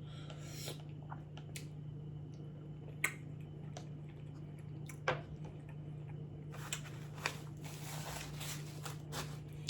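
A person eating chili with their mouth close to the microphone: scattered soft wet chewing and smacking clicks, busier for a couple of seconds near the end, over a steady low hum.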